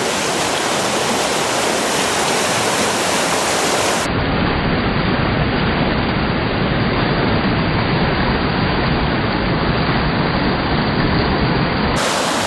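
River water rushing over rapids: a loud, steady hiss. About four seconds in it turns duller and deeper, and it brightens again near the end.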